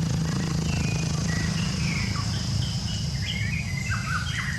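Outdoor ambience: a steady low rumble, a thin steady high tone like insects, and many short high chirps that come thicker in the second half, some of them sweeping down.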